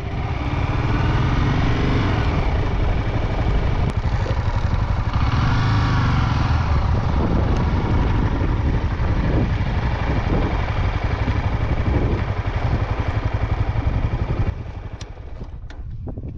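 Honda motorcycle engine running as the bike rides along, with a brief rise and fall in pitch partway through; the sound drops off sharply near the end.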